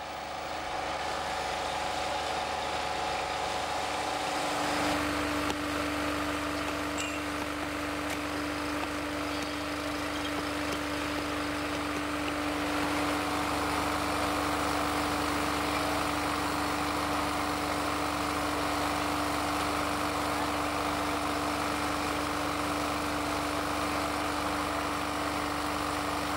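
Small petrol engine of a portable track-maintenance machine running steadily, its note changing about five seconds in.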